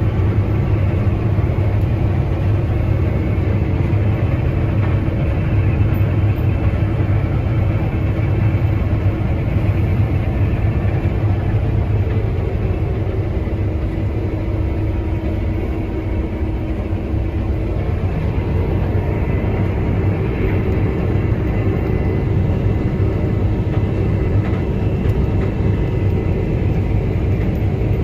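Combine harvester running steadily at working speed while cutting wheat: a loud, even low engine drone with the machine's mechanical whir over it.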